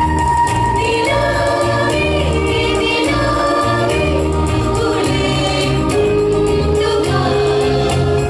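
Mixed choir of women and men singing in parts through stage microphones, voices holding and moving between notes.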